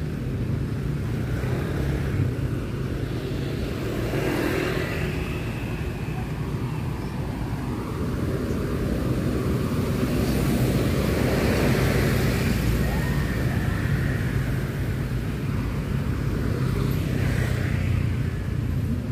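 City road traffic: a steady low rumble of engines and tyres, with vehicles passing close by about four seconds in, again in the middle, and near the end.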